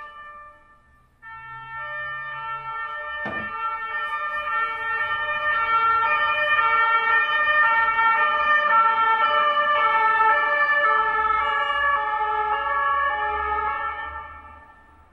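Two-tone emergency vehicle siren of the French "pin-pon" kind, alternating between two pitches, growing louder and then fading away as it passes. A short knock about three seconds in.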